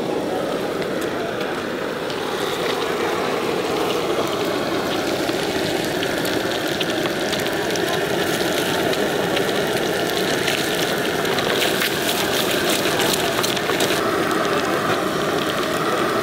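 Steady street-stall noise with background voices, and hot oil crackling under frying boiled eggs, busiest from about ten seconds in.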